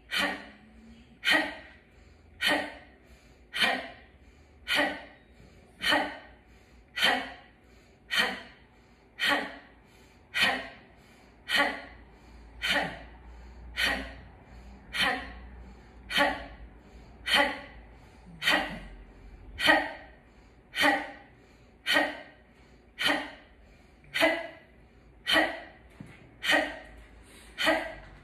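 A woman's forceful breath exhaled through the mouth as the Kundalini mantra "ha", sharp and short, repeated at an even pace a little over one second apart. It is a rhythmic yoga breathing exercise (kriya).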